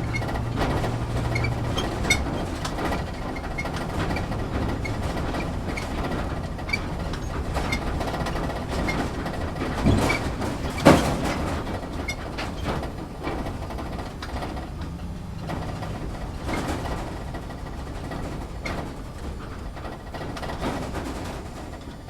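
Off-road vehicle driving slowly over bumpy dirt and rocks, heard from inside the cabin: a steady engine and tyre rumble with frequent rattles and knocks from the body. Two harder jolts come about ten and eleven seconds in.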